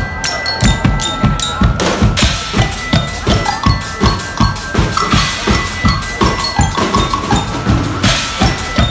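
Guggenmusik drum section playing a steady beat, with bass and snare drums at about three to four strokes a second. Cymbals crash in about two, five and eight seconds in.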